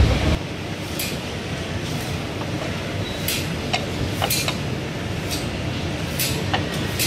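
Steady rush of gas burners under a row of clay pots, with a few short, sharp clinks of clay lids and chopsticks against the pots.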